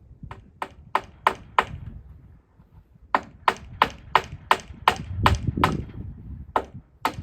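Hammer driving nails into wooden framing: two runs of quick, ringing blows, about three a second, with a short pause between and a few more blows near the end.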